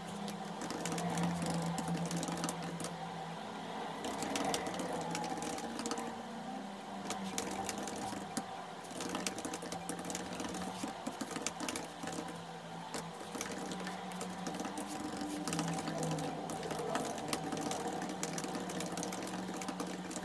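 Rapid typing on a MacBook laptop keyboard, a dense run of quick key clicks, with soft background music underneath.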